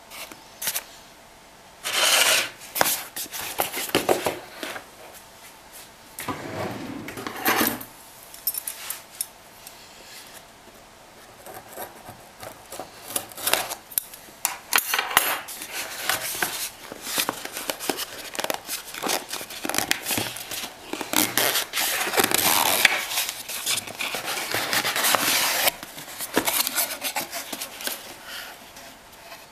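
Handling sounds: irregular clicks, taps and scraping, with a few longer stretches of rustling noise.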